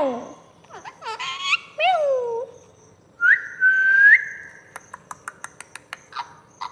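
Alexandrine parakeet calling: a few short falling squawk-whistles, then one held whistle of about a second that rises slightly at the end, followed by a quick run of clicks near the end.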